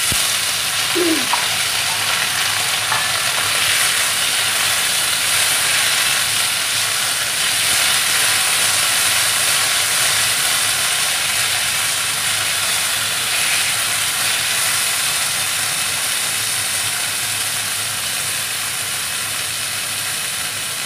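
Freshly washed long beans (lobia) and potato pieces going into hot oil with cumin in a metal kadhai: loud sizzling starts suddenly as they hit the oil and goes on while they are stirred with a wooden spatula. The hiss eases slightly near the end.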